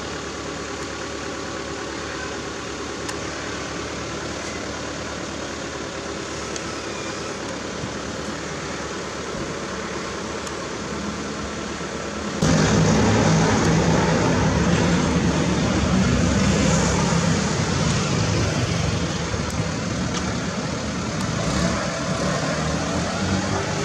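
Utility bucket truck's engine idling steadily. About halfway through it gets suddenly louder and rougher and stays that way.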